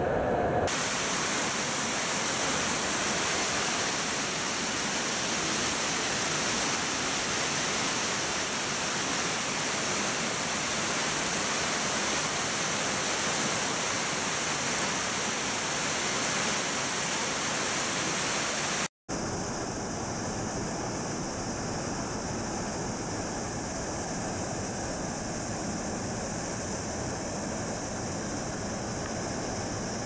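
Nunobiki Falls in heavy flood after record rain: the steady, dense rush of a large volume of falling water and spray. The sound cuts out for an instant about two-thirds of the way through and comes back a little quieter.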